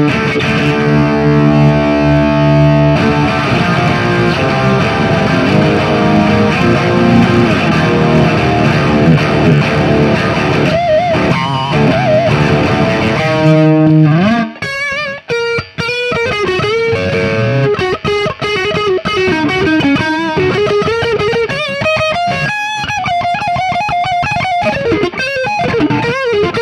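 Electric guitar played through an overdrive pedal into the front input of a Soldano SLO 30W Mini amp head, with the pedal's gain set high for a crunch tone. Distorted chords for about the first half, then a single-note lead line with bends and vibrato.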